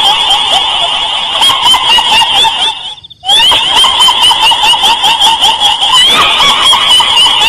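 Dense, rapid chattering calls in two pitched bands, one high and one lower, running continuously. The calls break off for about half a second around three seconds in, then resume.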